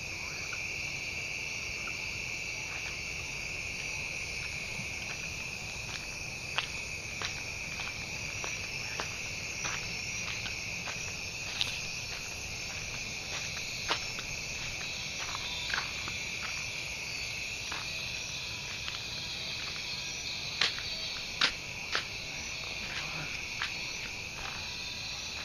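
Steady high-pitched chirring of a night insect chorus, with a few sharp clicks scattered through, the loudest a little past two-thirds of the way in.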